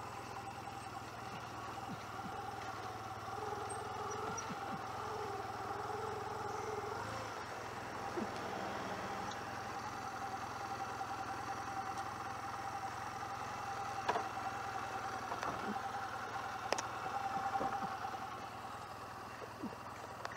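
Honda CMX250C Rebel's small air-cooled parallel-twin engine idling at a standstill. Its low hum stops about seven seconds in. A few sharp clicks and knocks follow later.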